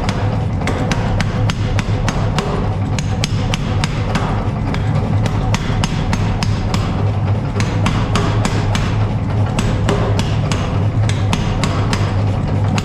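Hammer blows on steel, a fast run of sharp strikes, several a second, over a steady low hum.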